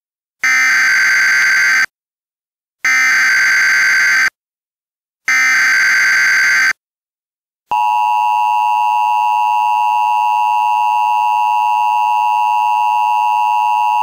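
Emergency Alert System tones: three identical bursts of SAME digital header data, each about a second and a half long with short gaps, then from about eight seconds in the steady two-tone EAS attention signal, held unchanged.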